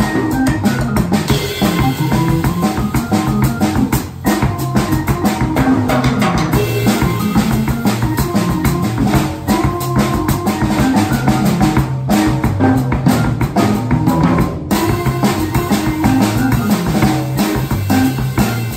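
Organ and drum kit jazz duo playing: a Viscount electronic organ gives a moving bass line under held chords, while the drum kit keeps time on cymbals and drums. The band drops out briefly about four seconds in.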